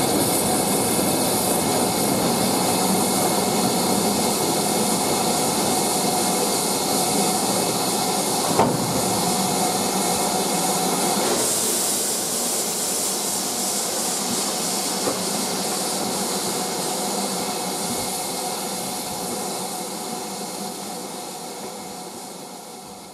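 BR Standard Class 4MT 2-6-4T steam tank locomotive running, heard from its cab: a steady mechanical rumble mixed with steam hiss. The hiss grows stronger about halfway through, there is a single sharp click a little before that, and the sound fades out over the last few seconds.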